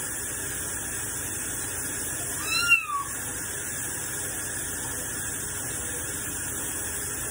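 A wet cat being bathed gives one meow about two and a half seconds in, rising then falling in pitch, a protest at the bath. Under it, a kitchen tap runs steadily into a steel sink.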